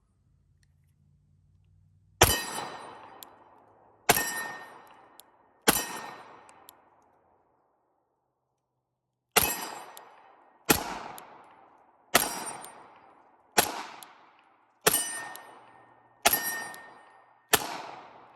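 Pistol fired ten times at a slow, deliberate pace: three shots, a pause of about three and a half seconds, then seven more about a second and a half apart. Each shot rings out with a metallic tone as it fades.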